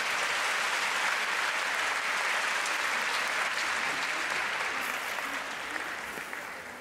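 Crowd applauding, a steady clapping that dies down a little near the end.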